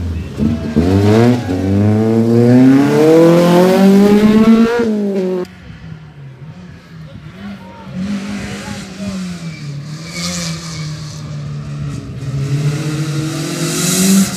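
Rally car engine dropping in pitch through the corner, then revving hard as it accelerates away, the pitch climbing steadily for several seconds. About five seconds in the sound falls away sharply to a fainter engine in the distance, and near the end the next rally car's engine grows louder as it approaches.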